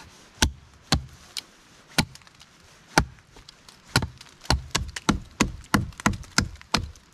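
Small hatchet chopping a notch into an upright wooden pole: sharp wooden chops, a few spaced out at first, then a quicker run of about three a second from the middle on.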